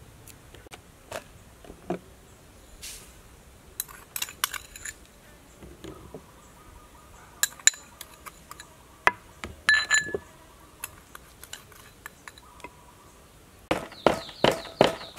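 Scattered light clinks and taps of a spoon and ingredients against a mortar, then, near the end, a wooden pestle starts pounding in the mortar in a steady rhythm of about three strokes a second.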